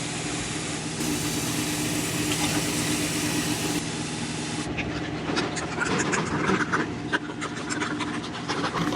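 Steady low mechanical hum, with light clicks and taps from about five seconds in.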